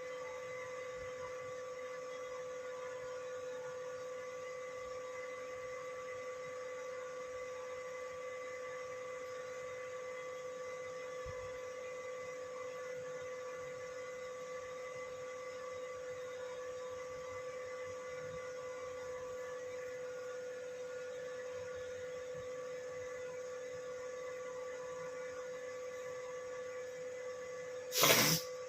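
A steady, unbroken electronic tone, like a continuous beep, holds one pitch throughout. About a second before the end a brief loud burst cuts across it.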